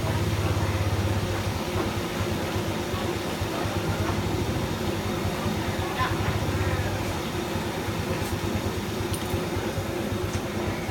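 Chicken pieces deep-frying in a wok of bubbling oil over a gas burner: a steady low rumble of the burner flame under the sizzle of the oil.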